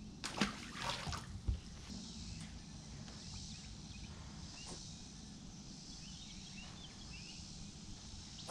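A short splash and water dripping about half a second in, as a largemouth bass is dropped back into the lake, then quiet open-water ambience with a few faint high chirps.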